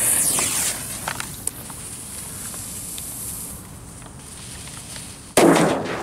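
Cialfir Trueno 4 Loki firecracker, a 0.7 g candy-wrapper banger: its lit fuse hisses and spits for about three and a half seconds, then after a short lull it goes off with one sharp, loud bang near the end.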